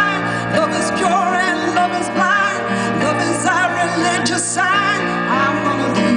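A woman singing live into a microphone, held notes with a wavering vibrato, accompanying herself on piano chords.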